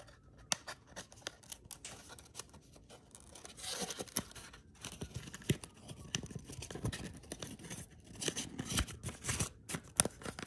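Paper and thin cardboard rustling and scraping as a printed card is slid against a cardboard sleeve in the hands, with scattered small clicks and taps. It gets busier about four seconds in and again near the end.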